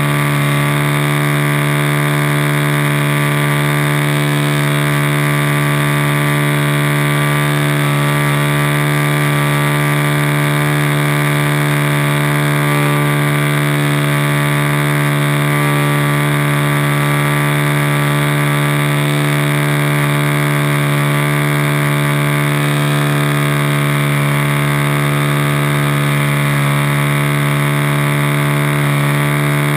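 RC model Cub's motor and propeller running at a steady cruise setting in flight, heard from inside the model's cabin: a loud, even drone whose pitch holds constant throughout.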